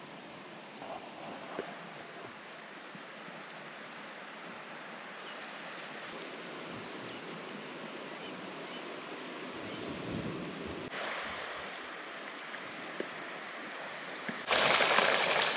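Steady wash of sea surf on the shore, swelling and easing gently. About a second before the end, a louder, brighter hiss cuts in suddenly.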